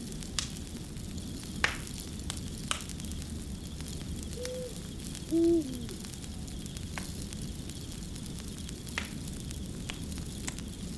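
Fire crackling, with sharp scattered pops over a steady low rumble. An owl hoots twice around the middle, the second hoot lower and longer with a falling end.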